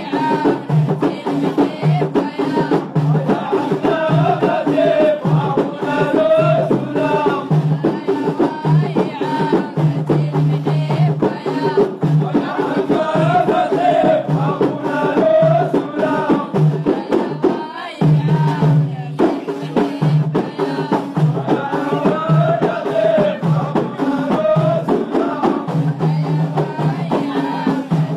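Ahidous: a men's chorus chanting in unison over frame drums beaten in a steady rhythm, with a short break about two-thirds of the way through.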